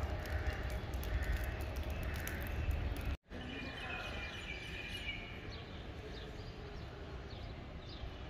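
Outdoor ambience: a low rumble of wind on the microphone for the first three seconds, broken by a brief dropout. After that, birds chirping over a quieter background.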